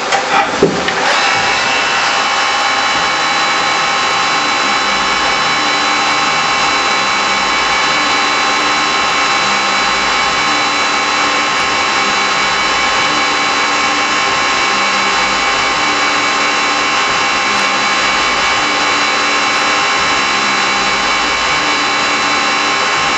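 Hurco TMM8 CNC lathe's live-tool end mill cutting an aluminum part: steady machine whine and cutting noise, with a low pulse repeating about once a second. A few sharp knocks come within the first second.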